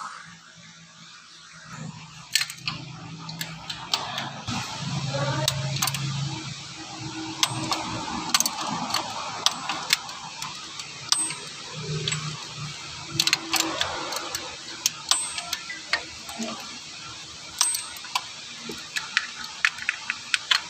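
Metal tools clicking and clinking against the water pump bolts as a socket wrench works them loose: sharp, irregular clicks, many in a row.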